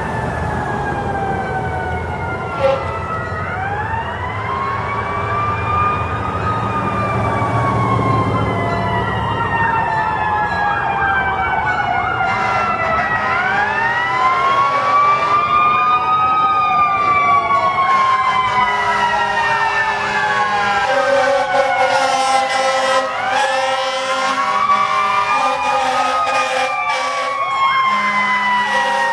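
Several fire engine and police sirens sounding together: long siren tones that slowly fall in pitch, overlapped by sirens wailing up and down every few seconds. Steady horn-like blasts join in over the last several seconds.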